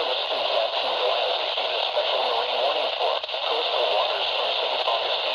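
NOAA Weather Radio broadcast coming through a radio receiver's speaker on a weak signal: steady static hiss with a faint voice barely showing through underneath.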